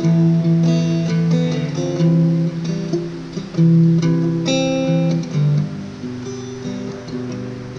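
Acoustic guitar strummed and picked in chords, an instrumental passage of a song with no singing.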